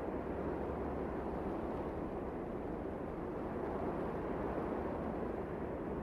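Canyon wind blowing: a steady, low rushing with no gusts.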